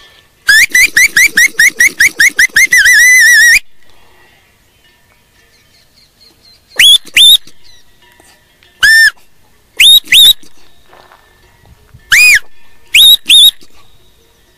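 A herding handler's whistle giving commands to sheepdogs: a fast run of about a dozen short rising whistles ending in a held warbling note, then, after a pause, several short sharp whistles, mostly in pairs.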